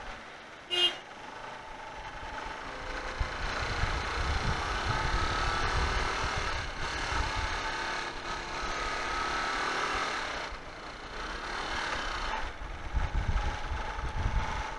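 Motorcycle riding through city traffic: its engine runs under heavy wind rumble on the microphone that comes and goes with speed. About a second in, a short horn beep is the loudest sound.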